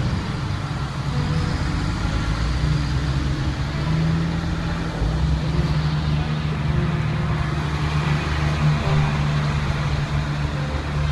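Military trucks' engines running as the convoy drives past: a steady low engine drone with a hum that grows stronger about four seconds in.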